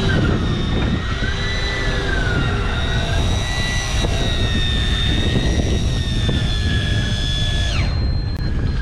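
Electric fishing reel motor whining steadily as it winds line up from depth, its pitch wavering with the load. Near the end one whine drops sharply in pitch as a motor stops. Underneath is a steady rumble of wind and sea noise.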